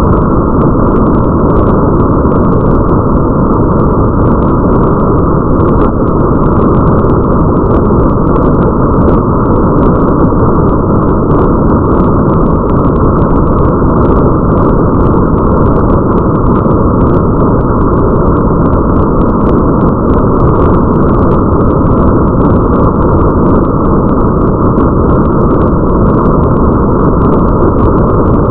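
Steady, muffled rain ambience: a dense low rumble of rain with faint droplet ticks scattered over it, as if heard through a window.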